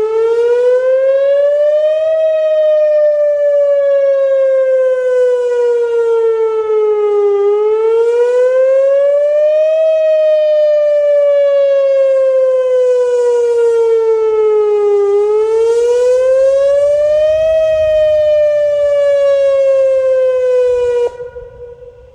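Whelen WPS-2906 electronic outdoor warning siren sounding its wail tone in a test. Its pitch rises over about two seconds and sinks slowly over about five, three times over, with a ladder of overtones. It cuts off suddenly about a second before the end.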